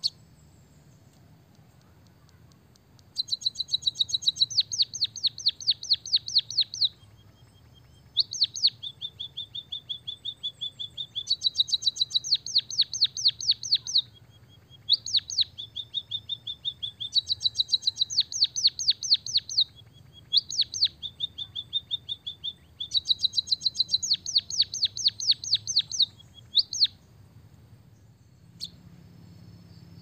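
White-headed munia singing a canary-style song: phrases of fast rolled trills, about ten notes a second, each phrase a few seconds long and linked by a lower held note, repeated five times. The song starts about three seconds in and stops near the end.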